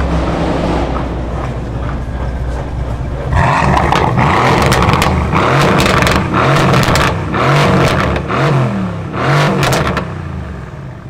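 Car engine idling, then revved hard about three seconds in: a string of revs rising and falling in pitch, with sharp crackles between them, dropping back near the end.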